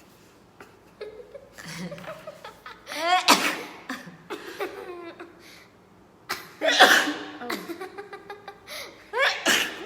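A person sneezing loudly, once about three seconds in and again about seven seconds in, each with a rising in-breath "ah" before the burst, with laughing between and after the sneezes.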